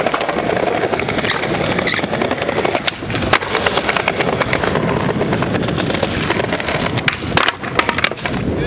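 Skateboard wheels rolling on smooth concrete, with repeated clacks of the tail and deck striking the ground during flatland tricks. A quick run of sharp clacks comes near the end as the board flips away from the rider.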